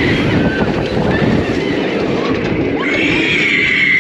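Tigris roller coaster ride heard from the front row: wind rushing over the on-ride microphone as the train runs on the track, with riders screaming. Short shrieks come early on, and a long high scream starts about three seconds in.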